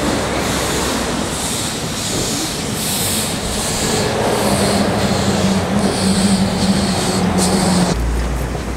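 Ffestiniog Railway Double Fairlie steam locomotive Merddin Emrys moving slowly, hissing steam from its cylinder drain cocks in regular beats a little more than once a second. A low steady hum joins about halfway through.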